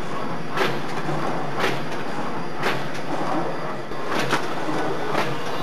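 WS-9905 food container forming machine running, a steady mechanical clatter with a sharp clunk about once a second.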